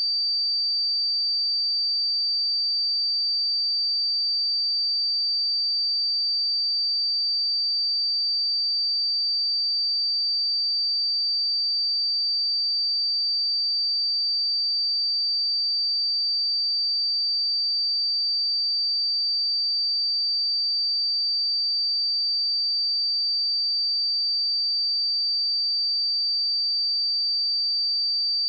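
Pure sine-wave test tone at 4642 Hz, a single high-pitched steady whistle held at constant level.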